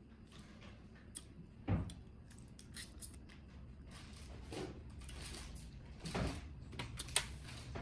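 Boiled red crab being picked apart by hand and eaten: scattered clicks and small cracks of shell with wet chewing sounds, and one louder knock about two seconds in.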